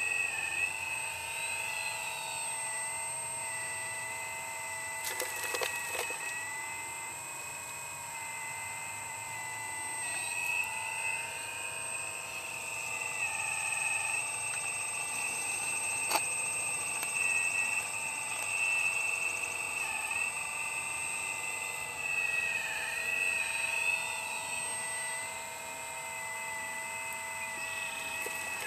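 RC model excavator's electric motors whining steadily, the pitch dipping and recovering every few seconds as the machine digs, lifts and swings under load.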